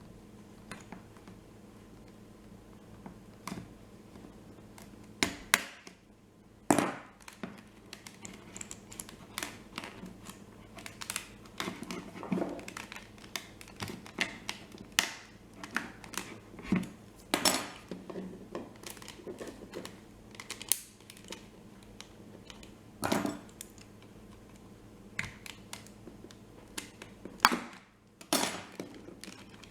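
Mitsubishi RL16502 TV remote control being handled and worked on by hand: irregular plastic clicks, taps and scrapes, with a few louder knocks spread through.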